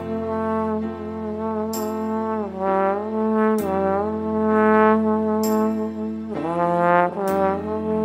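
Slide trombone playing a slow, sustained melody, sliding down between notes twice, over a soft accompaniment track with a light accent about every two seconds.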